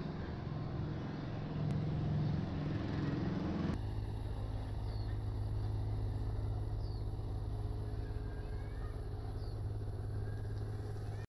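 Steady low drone of a running vehicle engine, with a cut about four seconds in to a steadier, lower hum. Three faint short high chirps sound over it in the second half.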